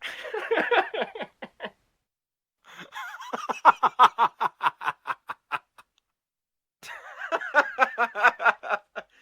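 Three separate stock sound-effect recordings of human laughter, one after another: the first short, the middle one the longest and loudest with a quick run of rhythmic "ha-ha" pulses, the last a lighter chuckling run. Each stops dead, with complete silence in between.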